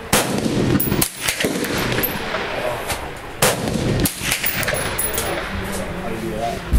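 Several rifle shots, the loudest right at the start and about three and a half seconds in, with more near one second and at the end, each trailing off in an echo.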